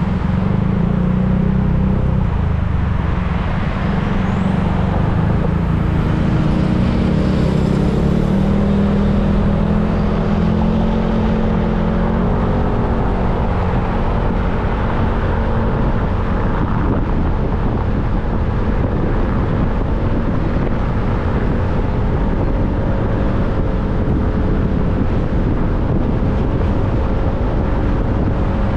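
Motorcycle engine running while riding along the road, with a steady rush of road noise. Its pitch climbs a little over the first dozen seconds and then holds steady.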